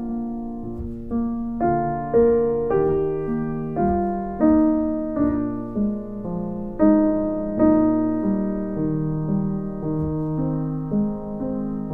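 Background piano music: notes and chords struck at an unhurried pace, each ringing and fading before the next.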